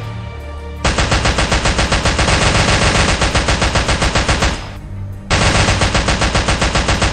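Dubbed-in automatic rifle fire sound effect: two long bursts of rapid, evenly spaced shots, with a short break about five seconds in, over background music.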